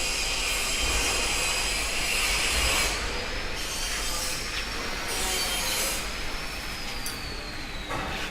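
Steady machine noise with a faint high whine that rises and then falls in pitch, and a few light knocks.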